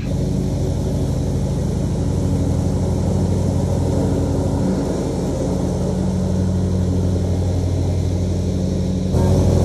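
Single ride-on John Deere lawn mower's engine running steadily as it mows, stepping up louder about nine seconds in.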